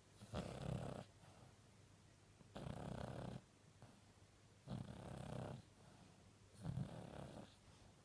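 Sleeping dog snoring loudly, four rasping snores about two seconds apart.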